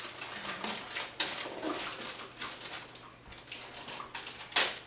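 Gift-wrapping paper crinkling and tearing as it is pulled off a present by hand: irregular crackles and small rips, with one louder rip near the end.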